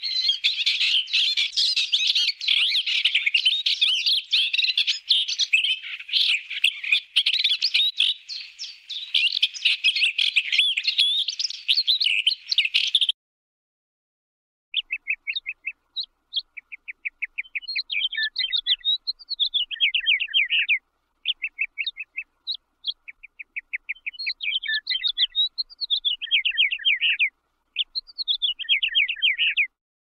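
Dense chorus of many small birds chirping together, which stops abruptly about thirteen seconds in. After a short pause, birdsong returns in separate phrases of rapid trills and notes that rise and fall.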